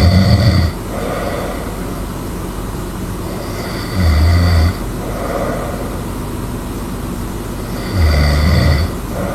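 A person snoring loudly: three snores about four seconds apart, each a low buzzing rasp lasting under a second, with a softer breath between them. Steady background noise runs underneath.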